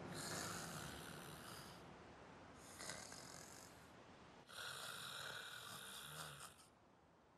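Boys snoring in their sleep, as a cartoon sound effect: three long snores, the last the loudest.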